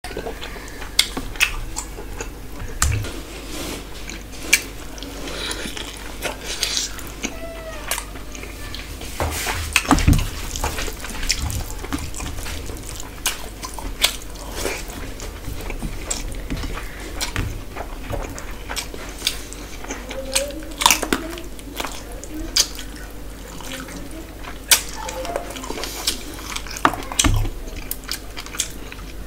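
Close-up eating sounds: wet squelching as rice is mixed with curry gravy by hand, chewing and lip smacks, with many sharp clicks and a few dull knocks.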